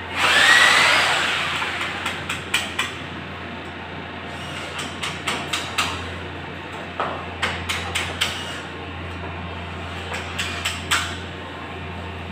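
Sharp knocks and taps from installation work on cubicle partition panels, coming in small clusters of two to four, over a steady low hum. A brief rising whir is heard about half a second in.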